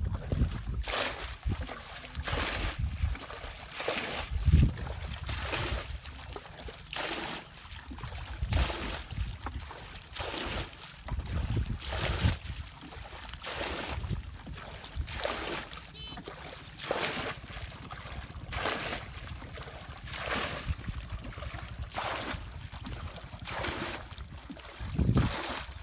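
Water sloshing and splashing over and over, about once a second, as a plastic bucket scoops muddy ditch water and throws it over a mud dam to bail the pool dry. Wind rumbles on the microphone underneath.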